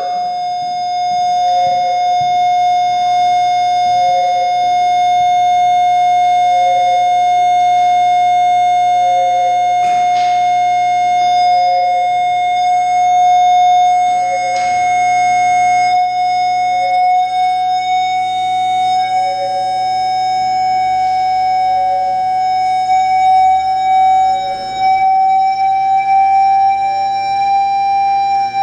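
Electronic noise music: a loud, siren-like held drone that creeps slowly upward in pitch, over a softer tone pulsing evenly a little slower than once a second. Two sharp clicks cut in near the middle.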